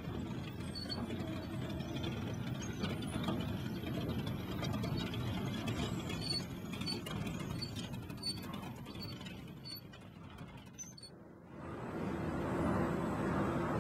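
Wood-chip fuel auger and conveyor running: a steady mechanical clatter and rattle with light regular ticks. It dies down near the end and is replaced by a louder, rushing machine noise.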